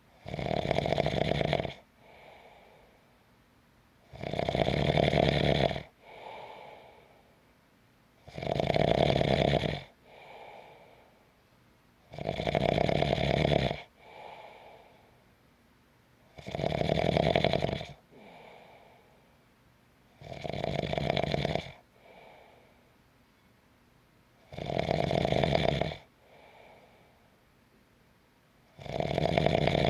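A sleeping person snoring in a slow, even rhythm: a loud snore about every four seconds, each followed by a shorter, softer breath.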